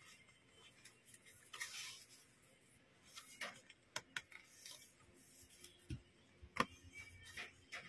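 Pages of a hardcover photobook being turned by hand: a faint paper swish about two seconds in, then scattered soft taps and rustles as the photo pages are flipped and set down.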